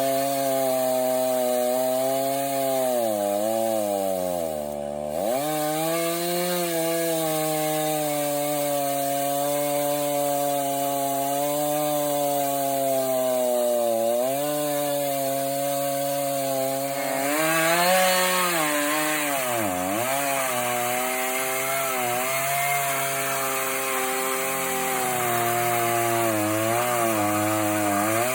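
Chainsaw on an Alaskan chainsaw mill running at high revs while ripping a hardwood log lengthwise into a slab. The engine note dips several times as the chain bogs under load and then recovers. From about two thirds of the way in, the cutting noise grows harsher.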